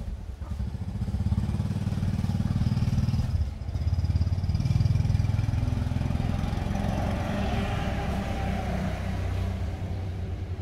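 A small engine running steadily with a low hum, briefly dropping off about three and a half seconds in before picking up again.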